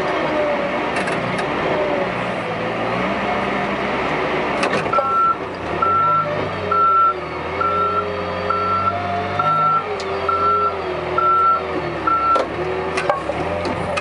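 Case 580 backhoe loader's diesel engine running, its speed rising and falling slightly, with its reversing alarm beeping nine times, about once a second, from about five seconds in. There is a clunk just before the beeping starts and another just after it stops.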